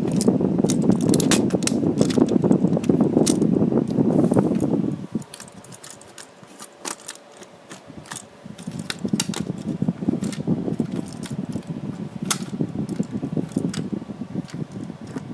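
Handling noise from fingers working on a toy ride-on car's plastic motor and gearbox housing: rustling with scattered small plastic and metal clicks. It is loud and dense for the first five seconds, falls away, and returns more quietly with clicks after about eight seconds.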